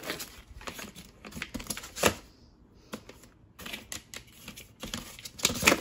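Plastic collapsible storage crate being unfolded by hand: its hinged side panels click and knock as they are pushed into place. The loudest snaps come about two seconds in and near the end, with a brief pause between them.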